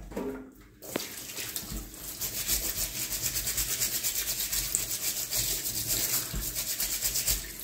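Tap water running into a stainless steel sink while a pineapple's rough rind is scrubbed under it, a fast, even scratching of several strokes a second over the hiss of the water. The water comes on about a second in.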